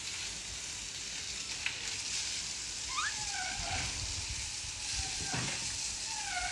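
Japanese macaques giving a few short coo calls that slide up and down in pitch, one about halfway through and another near the end, over a steady high hiss.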